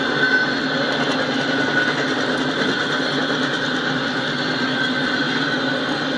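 Double-stack intermodal well cars rolling past, a steady noise of steel wheels running on the rails with a faint high tone coming and going.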